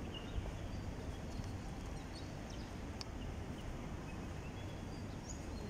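Steady outdoor background hum with a few faint, short bird chirps scattered through it.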